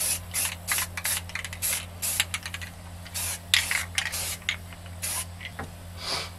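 Rust-Oleum deep forest green camouflage spray-paint can, sprayed in a quick series of short hissing bursts, about two to three a second, with one slightly longer spray past the middle.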